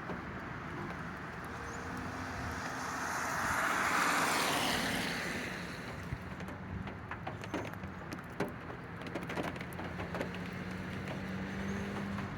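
Outdoor ambience with a vehicle passing by: its noise swells to a peak about four seconds in and fades away. Under it runs a low steady hum, with scattered light clicks in the second half.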